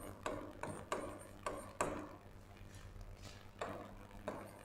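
Chalk writing on a blackboard: faint, irregular taps and short scratching strokes as letters are written.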